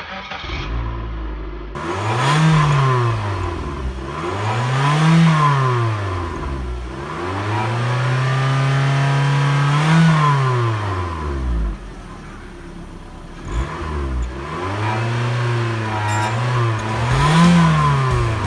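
Car engine being revved repeatedly through an exhaust fitted with an aluminium fake turbo whistler, the exhaust note rising and falling about five times, with one longer held rev in the middle.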